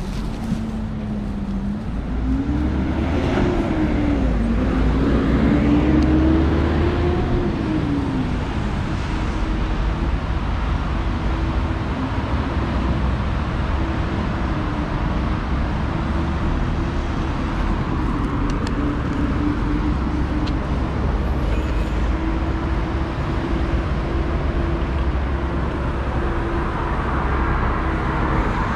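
A motor vehicle's engine running, its pitch rising and falling several times over the first eight seconds as it speeds up and slows, then holding nearly steady, over a constant low rumble.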